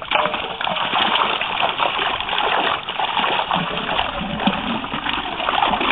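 Continuous, irregular splashing in shallow pond water as fish flap in a hauled-in fishing net and are gathered out by hand.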